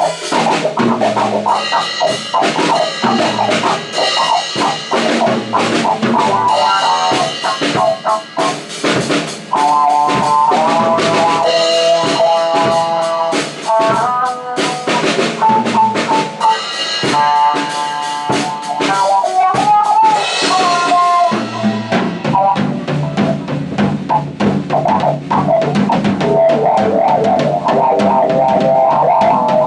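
Music: a drum kit playing a steady beat under a pitched lead melody, with a deeper bass part coming in about two-thirds of the way through.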